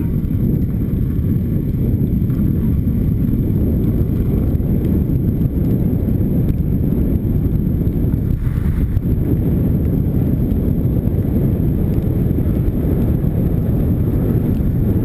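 Longboard's urethane wheels rolling fast down an asphalt hill, a steady loud rumble mixed with wind buffeting the camera's microphone.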